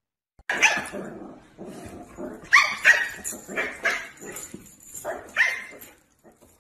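A dog barking and yipping: a string of short, sharp calls starting about half a second in and stopping shortly before the end.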